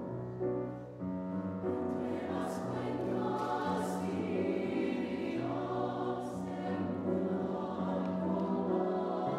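Mixed choir of men's and women's voices singing slow sustained chords that change about once a second, with piano accompaniment. A few hissed consonants stand out briefly.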